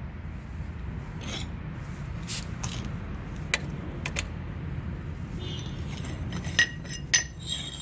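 Scattered light metallic clinks and taps from the motorcycle's rear wheel and axle parts being handled and the wheel turned, a few closer together near the end, over a steady low background rumble.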